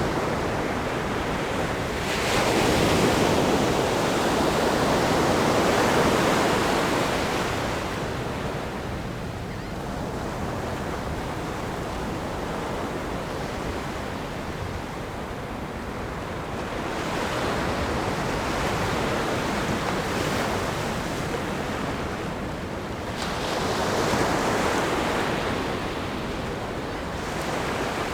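Ocean surf breaking on a rock groin and sandy beach: a continuous wash of water with waves surging in. The waves swell loudest about two seconds in and again around twenty-three seconds, with a little wind on the microphone.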